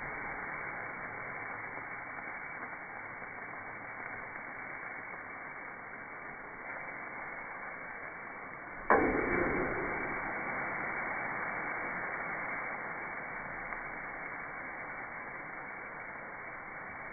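Marinated skirt steak sizzling with a steady hiss on a charcoal kettle grill. About nine seconds in, a flipped piece lands on the grate with a slap, and the sizzle swells, then settles back.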